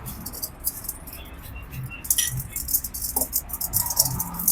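Small steel steering-bearing parts (cone races and loose balls) clinking and rattling against each other as they are handled, in a quick irregular patter.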